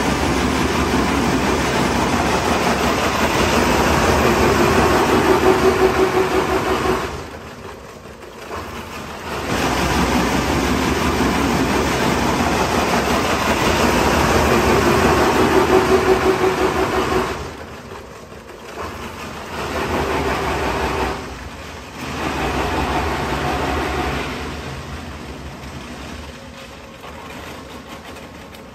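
Single-shaft shredder rotor chewing through plastic pipes: a loud, dense grinding and crunching. It breaks off twice for about two seconds to a low machine hum, then comes back in shorter spells and tails off near the end as the load thins.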